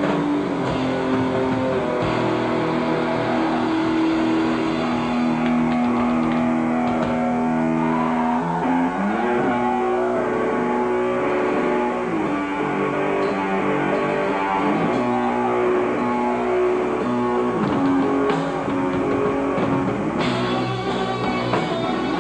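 Live rock band playing an instrumental passage on electric guitars and bass, with long held notes that slide in pitch several times.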